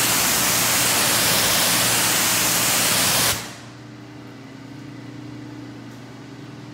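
Pressure washer jet spraying onto a car windshield: a loud, steady hiss of water striking the glass that cuts off suddenly a little over three seconds in, leaving a low steady hum.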